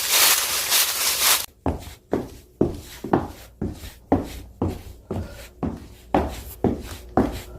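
A loud rushing hiss that stops about a second and a half in, then a person's footsteps at a steady pace of about two steps a second.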